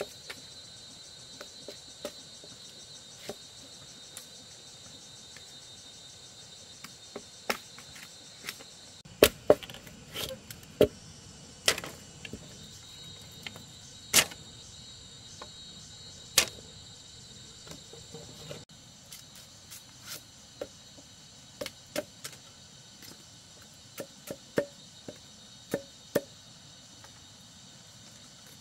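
Irregular sharp knocks or chopping strikes, loudest and most frequent about a third of the way in, over a steady high chirring of insects.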